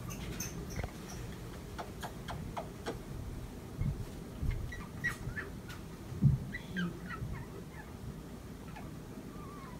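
Cockatoo making a string of soft clicks and short squeaky chirps, mixed with a few low thumps, the loudest about six seconds in.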